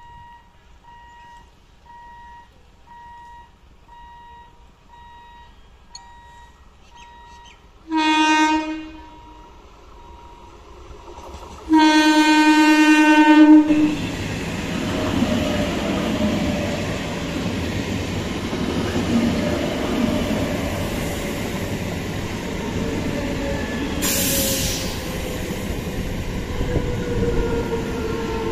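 Eastern Railway EMU local train sounding its horn twice, a short blast about eight seconds in and a longer one about four seconds later. It then runs past close by with a steady rumble of wheels on rail and a tone that slowly falls in pitch.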